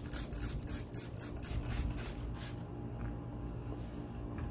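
Hand trigger spray bottle squirting alcohol-and-water solution onto a car headlight: a quick run of short hissy sprays, several a second, stopping after about two and a half seconds.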